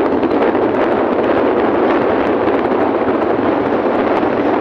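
Wind and rain rushing over the microphone while travelling along a wet road: a loud, steady, crackling rush with no let-up.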